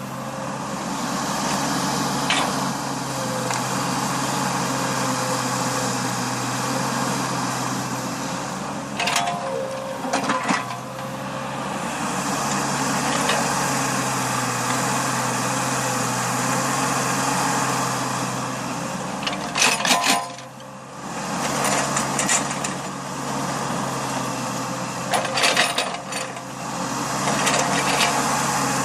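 Small backhoe's engine running steadily under work, with short metallic clanks and rattles from the digging gear every several seconds.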